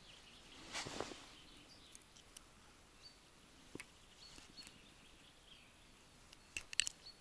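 Faint close handling sounds of a plastic hook disgorger working a deeply swallowed hook out of a rudd's mouth: a soft rustle about a second in, a few small sharp clicks, and a quick cluster of clicks near the end as the hook comes free.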